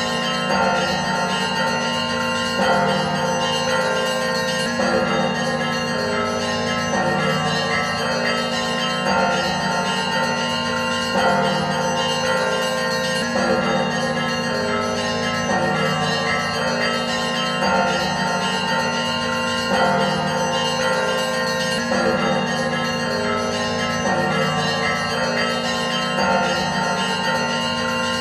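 Church bells ringing a continuous peal: many bells sound together in overlapping ringing tones, with a louder stroke coming about every two seconds.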